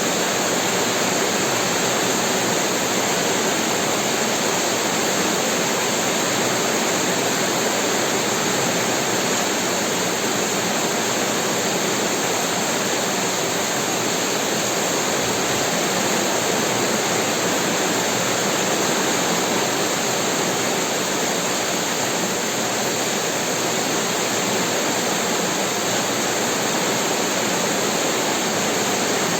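Heavy rain falling in a steady, even downpour with no thunder.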